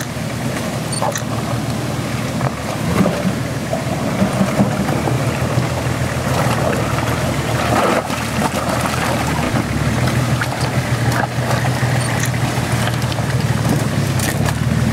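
Nissan Patrol 4x4's engine running steadily as the vehicle crawls over rocks, with a few short knocks along the way.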